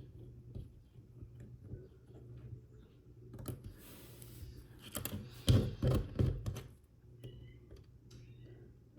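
Small plastic parts of a snap-together toy car being handled and pressed together: scattered light clicks and taps, with a cluster of louder knocks about halfway through.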